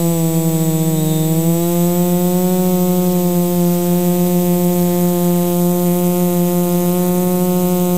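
Lumenier QAV540G quadcopter's motors and propellers buzzing steadily in flight, heard from the GoPro mounted on the airframe. The pitch dips slightly, then steps up a little about a second and a half in as the motors speed up.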